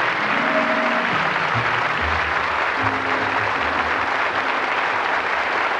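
Studio audience applauding over backing music, with the music's bass notes dropping away after about four seconds while the clapping carries on.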